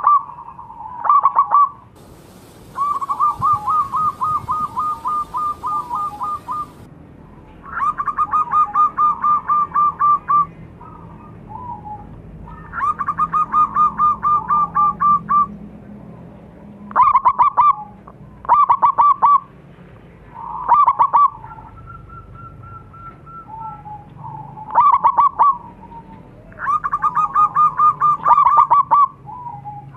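Zebra dove (perkutut) cooing: about a dozen phrases of rapid staccato coos, some short bursts under a second and some drawn out into long runs of several seconds, with short pauses between them.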